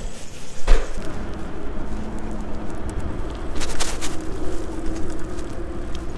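A single loud thump about a second in, then the steady low rush of wind and tyre noise from an e-bike being ridden, with a couple of sharp clicks near the middle.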